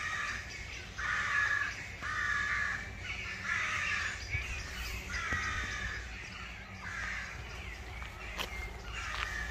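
Crows cawing, harsh calls roughly one a second from several birds, growing fainter in the later seconds.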